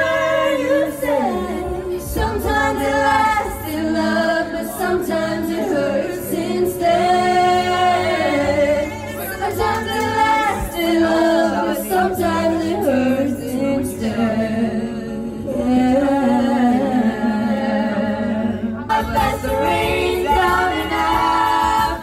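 A group of young voices singing together into handheld karaoke microphones.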